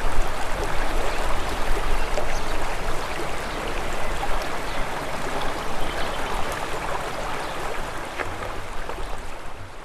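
A stream of running water rushing steadily, fading out gradually toward the end.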